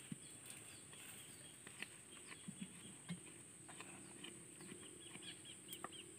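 Faint outdoor ambience: a steady high-pitched whine, with scattered faint chirps and a few light ticks.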